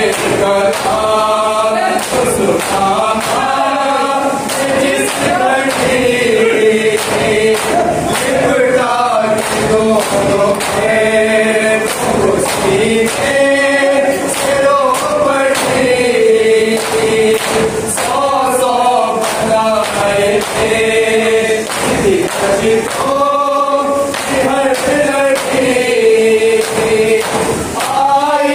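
A group of male voices chants a Shia noha in unison, in long drawn-out melodic lines, over the mourners' steady matam, hands slapping on chests.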